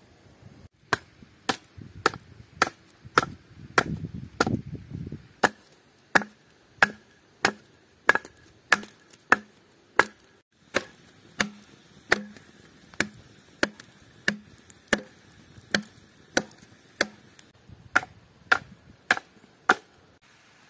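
Hatchet chopping into an upright split half-log to hew it flat for a wooden plate: a steady run of sharp wooden chops, about one and a half a second, with a short break a little after halfway.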